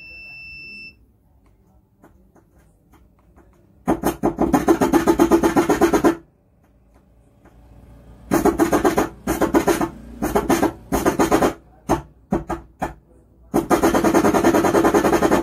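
Music played through a 12-volt car-type amplifier under repair, coming and going in three stretches with quiet gaps between, after a short electronic beep at the start. The sound lacks clarity: the amplifier works but gives poor-quality audio, which the repairer puts down to a faulty capacitor.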